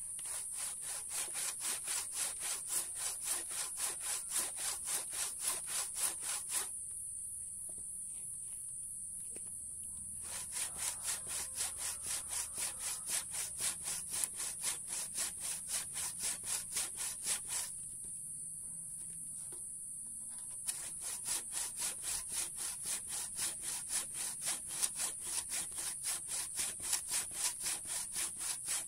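Handsaw cutting through a log of mangosteen wood, a very hard wood, in steady back-and-forth strokes about two a second. The sawing stops twice for a few seconds.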